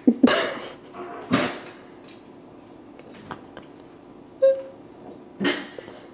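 A man coughing and gagging on a mouthful of food, in three sharp bursts: one at the very start, one after about a second and a half, and one near the end. It is a sign of the nausea he says is setting in as he eats.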